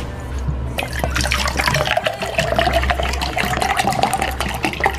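Water poured from a plastic gallon jug into a stainless steel tumbler, starting about a second in and splashing steadily into the metal cup as it fills.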